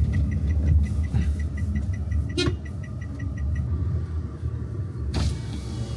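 Inside a taxi's cabin: low, steady rumble of the car on the road, with a fast, even run of short high ticks, about five a second, for the first half, and a sharp click about two and a half seconds in.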